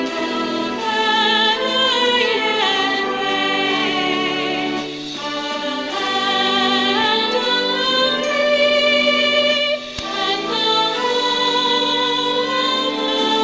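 Music with a choir singing long held notes, some of them wavering, and a single brief click about ten seconds in.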